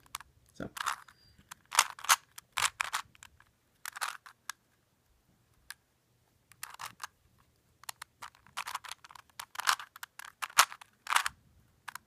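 A plastic 3x3x3 Rubik's Cube being turned by hand, its layers clicking and clacking in quick, irregular runs, with a pause of about two seconds near the middle.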